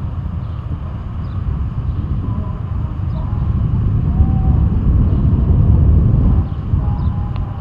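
Low, noisy rumble of a motor vehicle on a city street, growing louder until about six seconds in and then easing off, as if a vehicle passes or pulls away.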